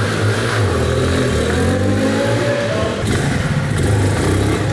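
Alpha RX 11 moped-style motorcycle engine running under way, rising in pitch as it accelerates through the middle.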